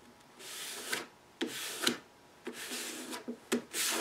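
A paper pattern being rubbed and pressed down by hand onto a glued luan plywood sheet: about four separate swishing rubbing strokes.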